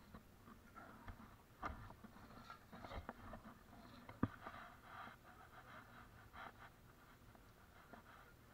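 Faint footsteps on grass, dead leaves and dirt, with a few light knocks and scrapes scattered through.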